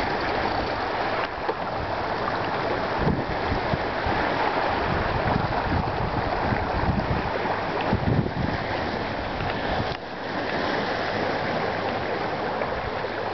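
Steady rush of wind and water along the hull of a J46 sailing yacht under way under sail, with gusts buffeting the microphone.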